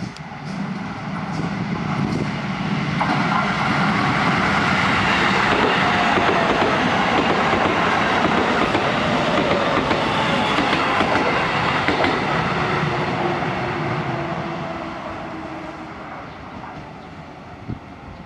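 A Shin-Keisei electric commuter train passing close by on the track: it grows louder as it approaches, runs past at full loudness for several seconds, then fades away.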